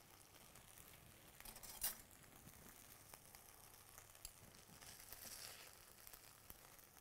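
Faint clinks and scrapes of a metal spoon against a skillet and a baking dish as stuffing is scooped and pressed into bell peppers. One sharper clink comes about two seconds in, and a soft scrape a little after five seconds.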